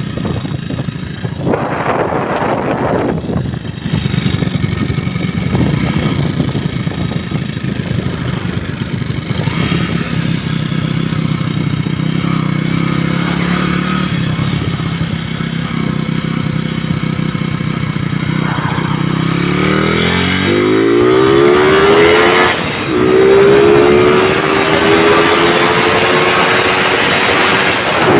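Honda EX5 Dream's single-cylinder four-stroke engine, built to a 56 mm bore, running under way on a test ride. About two-thirds in it revs up hard with the pitch climbing, drops out briefly, then climbs again as the speedometer nears 90 km/h.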